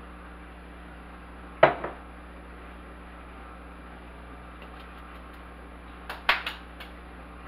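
Kitchen handling sounds over a low steady hum. A sharp clink comes about a second and a half in, followed by a smaller one. Around six seconds in there is a quick cluster of clinks and knocks as the glass sugar dispenser with its metal lid is set down on the counter.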